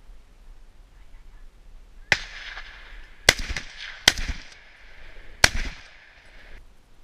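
Hunting rifle fired in quick succession during a wild boar drive: a quieter report about two seconds in, then three loud shots roughly a second apart.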